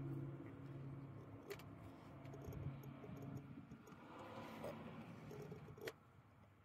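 Faint clicks and light metallic handling sounds as a Bosch M diesel injection pump is turned by hand, over a steady low hum that fades out about halfway through.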